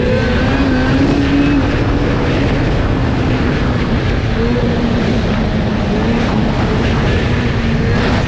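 Snowmobile engine running at steady trail speed under a heavy low rumble, its pitch lifting briefly every second or two as the throttle shifts.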